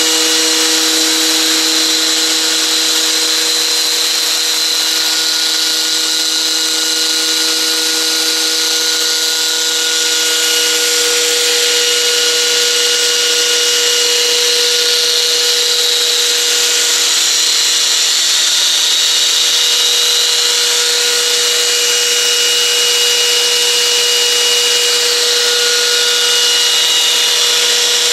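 Align T-REX 500 EFL electric RC helicopter running on its drivetrain, with the motor, gears and torque-tube tail drive giving a steady high whine over a hiss. The pitch of the whine shifts about ten seconds in. The owner is unsure whether the noise from the torque tube is normal.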